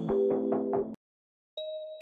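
Trap beat with rhythmic ticks over held low tones, cutting off abruptly about a second in; after half a second of silence the next track starts with steady sustained tones.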